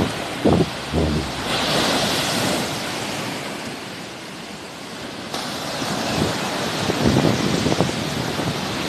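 Sea waves breaking and washing on the shore, with wind buffeting the microphone. A wave breaks about two seconds in and its wash fades, then the surf builds again after about five seconds, with low wind gusts near the start and again later.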